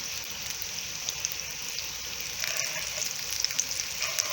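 Butter melting and sizzling in a pan over a medium-low flame, the first step of a roux for white sauce. A steady hiss with scattered small crackles, a little livelier from about two and a half seconds in.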